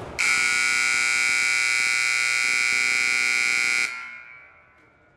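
Gymnasium scoreboard buzzer sounding one long, loud, steady blast of nearly four seconds, then cutting off and ringing away in the hall's echo. It marks the end of the period.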